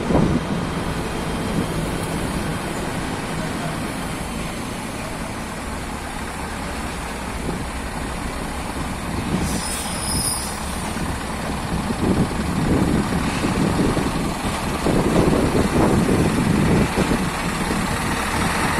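Scania R580 V8 tractor unit pulling a heavy multi-axle trailer slowly over rough ground, its engine and road noise growing louder in the second half as it draws near.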